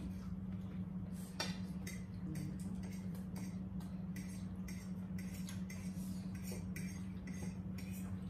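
Forks clinking and scraping on plates during a meal, a scatter of short irregular clicks, the sharpest about a second and a half in. A steady low hum runs underneath.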